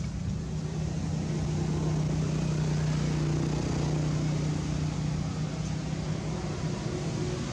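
A motor engine running steadily, a low hum with a higher overtone above it. It grows a little louder about a second and a half in and eases off again over the last couple of seconds.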